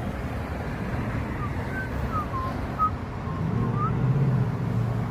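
Street traffic: a steady rumble of passing cars, with one vehicle's engine growing louder from about three and a half seconds in. Short high chirps come and go throughout.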